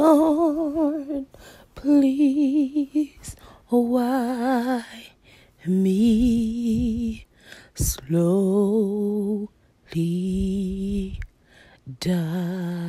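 Background music: a woman's voice singing slow, drawn-out phrases with a wavering vibrato, each about a second long with short breaks between them.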